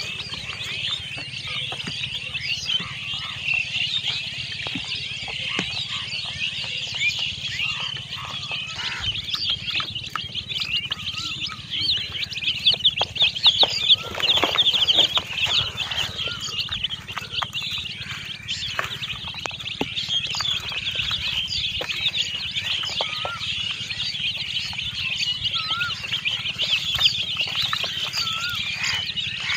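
A large brood of baby chicks peeping all at once: a constant chorus of many overlapping high-pitched cheeps.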